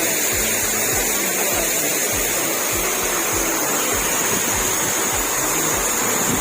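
Steady rushing of a waterfall, with a regular low beat of background music underneath at about three or four thumps a second.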